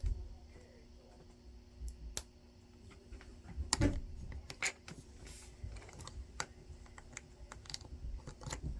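Small plastic LEGO pieces clicking and tapping as they are handled and fitted, a few scattered clicks at first and more frequent ones after about three and a half seconds.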